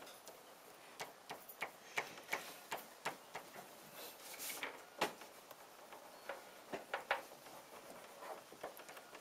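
Wacom-type pen nib tapping and scratching on the screen of a Lenovo LT1423p pen display during quick sketch strokes: irregular light clicks, a few sharper ones, and a short scratchy stroke about four seconds in.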